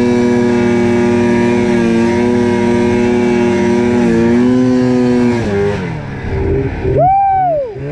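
Snowmobile engine running at steady high revs under way, easing off about five and a half seconds in, then a quick rev up and back down near the end.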